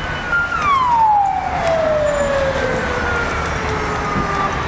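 A vehicle siren wailing: each cycle holds a high tone for a moment, then falls slowly over about four seconds, starting again near the end, over steady traffic noise.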